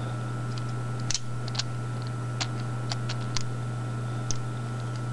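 Scattered small clicks of a plastic Transformers action figure's parts being moved and folded by hand, about half a dozen light ticks spread out, over a steady low hum.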